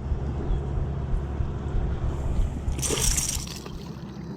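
Water splashing and sloshing, with one short, sharp splash about three seconds in, over a steady low rumble.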